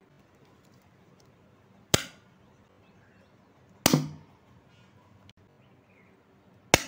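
Homemade string-wrapped paper firecrackers (rope bombs) going off with three sharp cracks: about two seconds in, just before four seconds and near the end.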